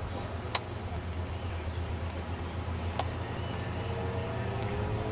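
Motorboat engine running steadily with a low hum, and two sharp clicks, one about half a second in and one at three seconds.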